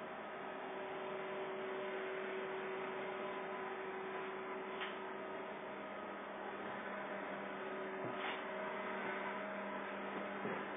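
Steady electrical hum with several tones, over a background hiss, with a few faint clicks about five, eight and ten seconds in.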